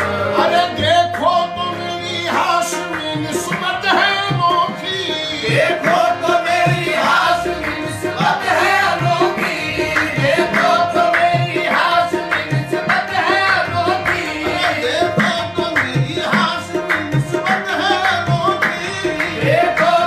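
Qawwali: male voices singing a wavering melody over two harmoniums and tabla keeping a steady beat.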